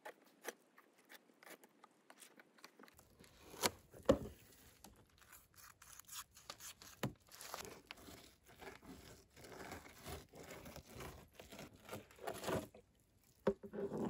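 Fillet knife working through a whitefish fillet on a plastic cooler lid: faint, irregular short scrapes and soft tearing as the flesh is cut away from the skin, with a few louder strokes about four seconds in and near the end.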